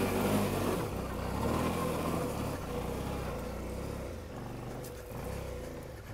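Motorcycle engine running while being ridden, its note rising and falling with the throttle over a steady hiss.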